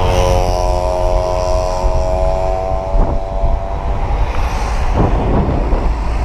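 Roadside traffic noise with a low rumble of wind on the microphone, and a steady droning tone that holds for about four seconds and then fades.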